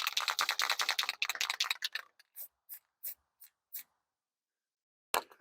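A fast run of sharp mechanical clicks that slows to single clicks about three a second, then stops, with one more click near the end.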